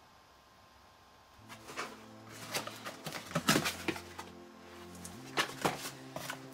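Cardboard box flaps being pulled open and handled: sharp rustles and scrapes, loudest about halfway through. Background music with sustained chords comes in about a second and a half in.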